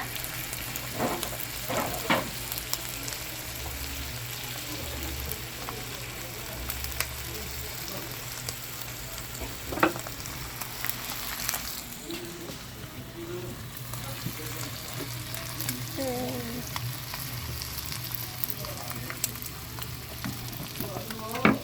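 Chicken sizzling and crackling as it cooks over an oak wood fire, a steady hiss full of small crackles with a few louder pops.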